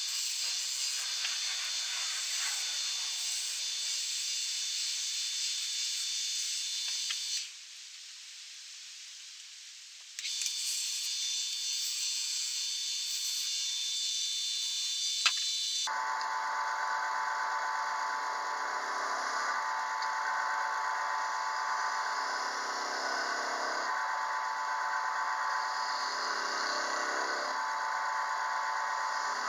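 A Harbor Freight benchtop wood lathe running with a steady motor whine while a turning chisel cuts the spinning cherry branch. The sound drops for a few seconds about a quarter of the way in, a sharp click comes about halfway, and then the sound turns fuller and lower for the rest.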